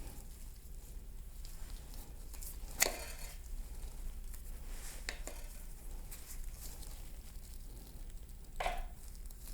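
Hand-tool work on a T-45 transmission shifter assembly with pliers and a towel: faint rustling and scraping, with a sharp click about three seconds in, a smaller click about five seconds in, and a short knock near the end.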